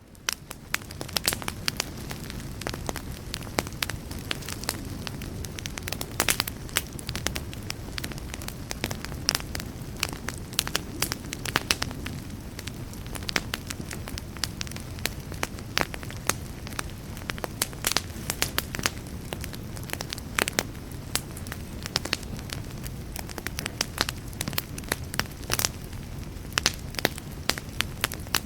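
Wood campfire burning: a steady low rumble of flames with frequent sharp, irregular crackles and pops.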